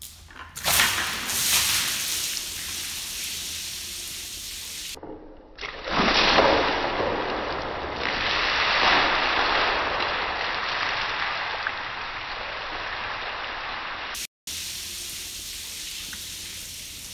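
A bucketful of water dumped onto a car windshield, gushing and splashing over the glass, wipers and hood, then streaming and trickling off. The loudest splash comes about six seconds in and slowly dies down to running water.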